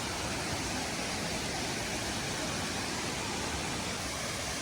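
Steady rushing of a waterfall close by: an even, unbroken wash of water noise.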